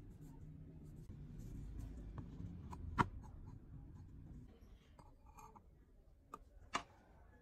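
Steel rebar being handled and set down on a steel worktop: a low rustle of handling, a single sharp metallic clink about three seconds in, and two lighter taps near the end.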